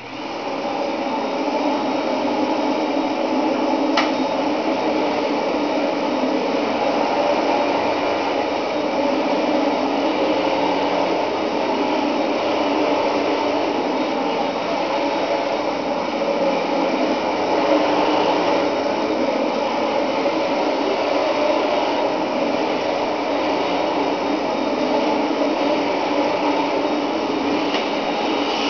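Panasonic Jet Flo MC-658U upright vacuum cleaner switched on and coming up to speed within about a second, then running steadily while pushed back and forth over carpet. A single sharp tick about four seconds in.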